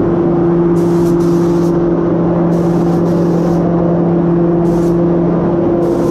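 A Devilbiss Pri-Pro Lite gravity-feed spray gun hissing in several short bursts as the trigger is pulled for passes of red basecoat. Underneath runs a loud, steady low hum with two level tones.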